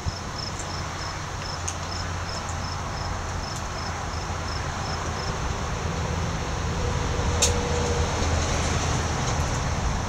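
A steady low rumble like an engine or traffic, growing slightly louder, with an insect chirping about twice a second that fades out about halfway through.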